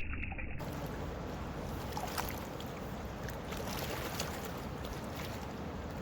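Steady outdoor noise of flowing river water and wind, with a few faint clicks.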